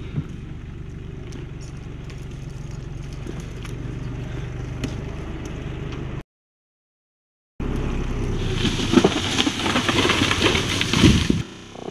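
An engine running steadily. The sound cuts out for about a second and a half, then returns louder, with a dense run of crackling and snapping over the engine that stops shortly before the end.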